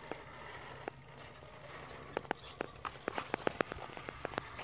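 Sharp, irregular clicks and taps on sandstone rock, growing denser from about two seconds in, as the RC rock crawler is driven up the rock face.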